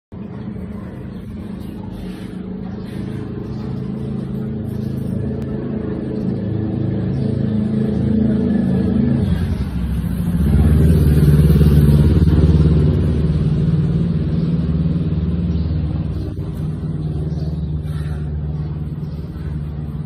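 An engine running with a steady low hum. It grows louder, dips and changes pitch about nine seconds in, is loudest a little later, then eases off.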